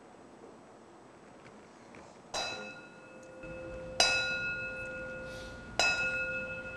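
A bell struck three times, about a second and a half to two seconds apart, each stroke ringing out on the same pitches and fading; the middle stroke is the loudest.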